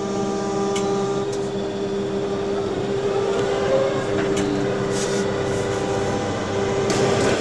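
New Holland NH2 hydrogen fuel-cell tractor running, heard from the cab: a steady electric hum and whine from its electric drive and cooling fans, with no combustion-engine note.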